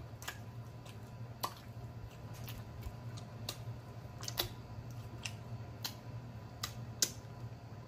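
Close-miked eating sounds: a man chewing saucy fried chicken wings and licking his fingers, with about a dozen scattered, irregular wet mouth clicks and smacks. A low steady hum sits underneath.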